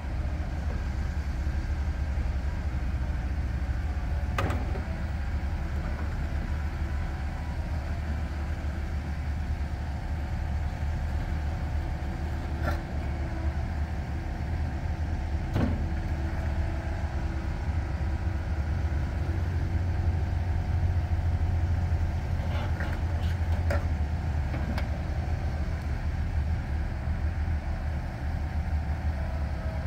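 Komatsu PC138USLC-11 excavator's 97 hp Tier 4 diesel running steadily as the machine works its arm and bucket, with a few sharp knocks scattered through.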